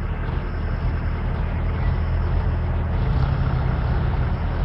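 Road vehicle's engine running with a steady low hum.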